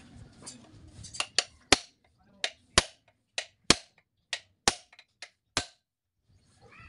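Hammer striking a punch to set the rivets that hold a new lining onto a truck's drum brake shoe, which sits on a rivet jig. About a dozen sharp metallic taps come at an uneven pace, often in pairs, and stop about a second before the end.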